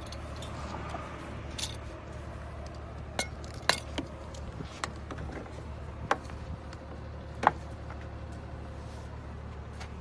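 Scattered sharp clicks and knocks of plastic hose fittings and a corrugated vacuum hose being handled and fitted onto a steam-vacuum wand and into the vacuum cleaner's inlet, the loudest knock about seven and a half seconds in. A steady low hum runs underneath.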